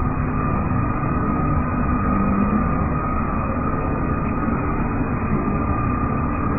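Steady drone of running factory machinery with a constant high whine above it, no separate knocks or changes.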